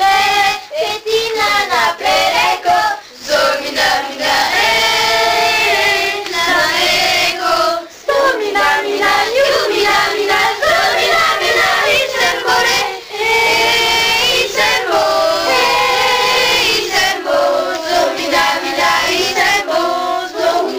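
A group of children singing together, with short breaks between phrases.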